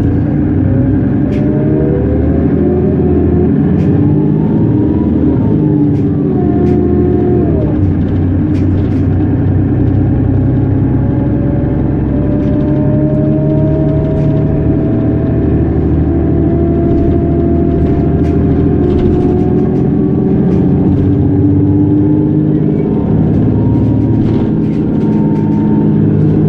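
Mercedes-Benz Citaro G articulated bus accelerating at full throttle under kickdown, its ZF Ecomat six-speed automatic gearbox whining under the engine. The whine rises, drops once about seven or eight seconds in as the gearbox changes up, then climbs slowly again through most of the rest.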